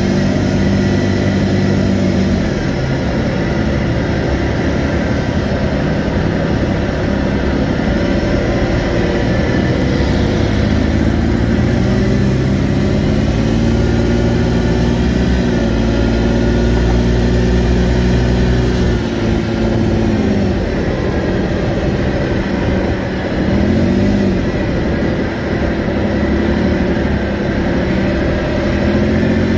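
Polaris side-by-side's engine running under way, its pitch rising and falling with the throttle several times.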